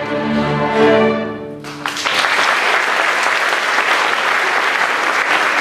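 A school string orchestra of violins and cellos holds a final chord that swells and then stops about two seconds in. It is followed at once by steady audience applause.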